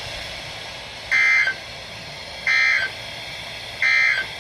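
NOAA Weather Radio's EAS end-of-message signal: three short bursts of SAME data tones, each under half a second and about a second and a half apart, through a weather radio's speaker. They mark the end of the severe thunderstorm warning just broadcast.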